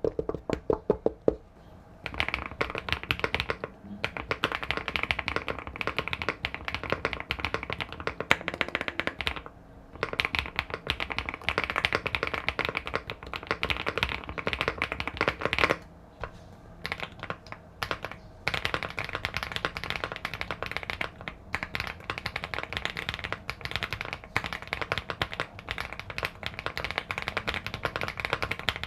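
Fast, continuous typing on mechanical keyboards, the Inky 75 and Linky 87 compared: a rapid stream of keystroke clicks with a few short pauses.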